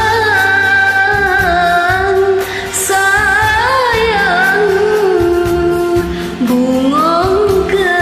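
A voice singing an Acehnese song over a karaoke backing track, holding long notes with ornamented turns and slides, with a steady bass line beneath.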